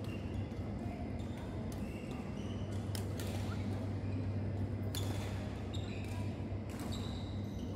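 Badminton racket strikes on a shuttlecock during a rally: a few sharp pops, the loudest about three and five seconds in, with short high squeaks from shoes on the court floor. A steady low hum of the large hall runs underneath.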